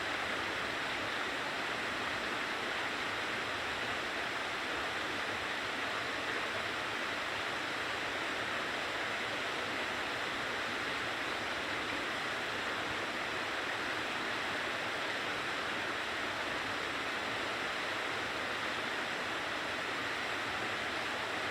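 Steady rush of falling water from a mountain waterfall or stream, an even unbroken sound with no other events.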